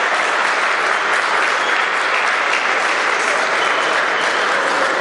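Audience applauding, a steady, even clapping throughout.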